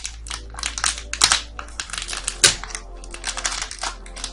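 Crinkling and crackling of a blind-packet wrapper being handled and torn open by hand, a quick irregular run of sharp crackles.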